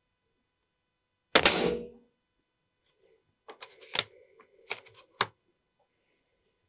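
One shot from a moderated PCP air rifle about a second in: a sharp crack with a short fading tail. About two seconds later come a series of metallic clicks as the rifle's side lever is cycled to chamber the next pellet.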